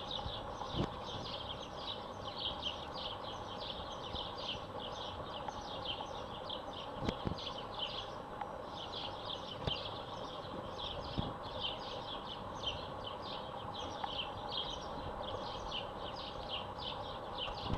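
Outdoor ambience: a long run of short, high chirps, roughly four a second with a few brief pauses, over a steady low hum, with a few soft knocks.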